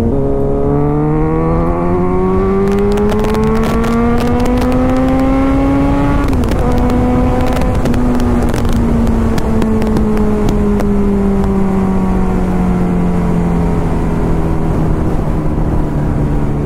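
Kawasaki Ninja 1000's inline-four engine pulling hard, its pitch climbing for about six seconds, then dropping once at an upshift and sinking slowly as the throttle eases off, heard from the rider's seat. Wind buffets the microphone during the hard pull.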